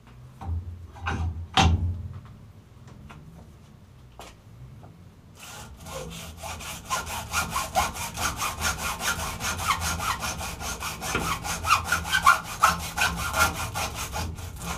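A few knocks and a clatter in the first two seconds. From about five seconds in, a hand hacksaw cuts through the copper stator windings of an electric motor with fast, even back-and-forth strokes.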